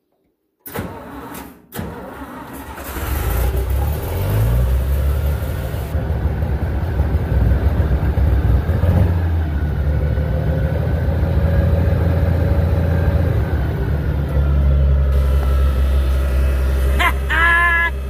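Tractor diesel engine cranked and started about a second in, rising in pitch as it catches over the next few seconds, then running steadily.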